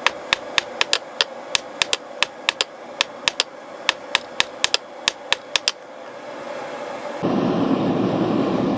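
Rapid hammer blows on metal, about three to four a second, stopping about six seconds in. A loud steady rushing roar then starts suddenly about seven seconds in.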